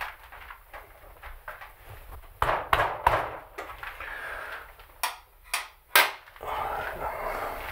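Workshop handling noises from work on a motorcycle's rear wheel and chain: a short run of sharp knocks about two and a half seconds in, then three single sharp clicks about half a second apart, followed by a soft rustle.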